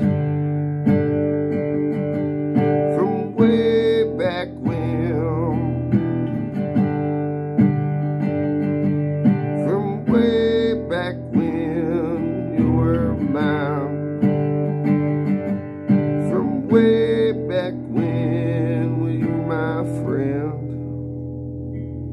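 Acoustic guitar playing an instrumental country passage, with strummed chords ringing under picked melody notes.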